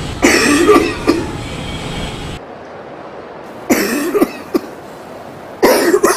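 Coughing in three fits, near the start, about four seconds in and just before the end, from an anti-smoking coughing poster that coughs at smokers nearby.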